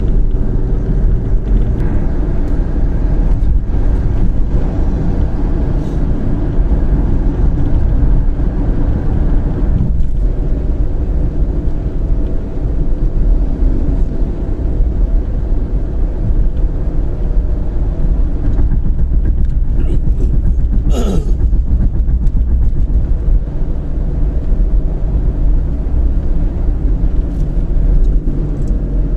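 Steady road and engine rumble of a moving car, heard inside the cabin, with a brief falling sound about two-thirds of the way through.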